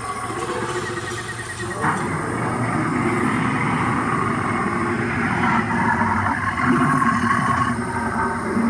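Animatronic Tyrannosaurus rex's recorded roar and growl played through its rock-shaped loudspeaker: a long, continuous low growl that gets louder about two seconds in.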